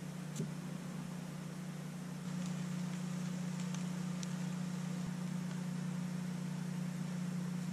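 A steady low mechanical hum under a faint even hiss, stepping up slightly in level about two seconds in. A light click comes about half a second in, and a few faint ticks follow a little later.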